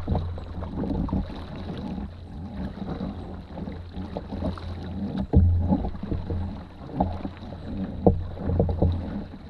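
Canoe paddles pulling through the water as the canoe is turned around, with a few sharp knocks of a paddle against the hull over a low steady rumble.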